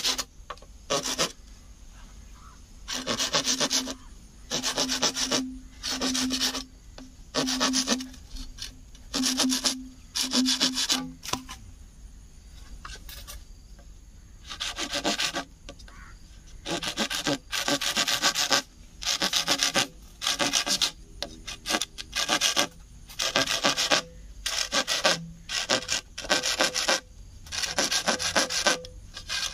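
Curved hand saw drawn back and forth through a green bamboo culm in repeated rasping strokes, the hollow tube ringing with a steady tone on each stroke. The strokes pause briefly near the middle, then come faster, about one a second.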